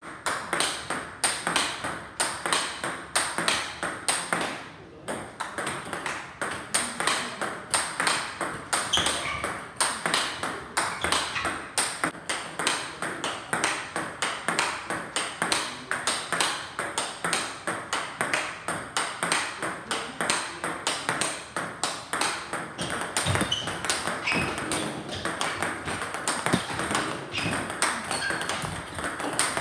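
Table tennis balls struck by rackets and bouncing on the table in a fast continuous rally, a crisp click several times a second, with a short break about five seconds in.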